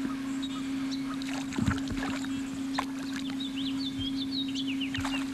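A steady low hum, with small birds chirping in short calls and a few sharp knocks, the loudest about a second and a half in.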